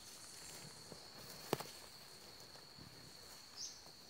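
Bare feet treading softly in loose dug soil, with one sharp click about a second and a half in, over a steady high-pitched trill of night insects.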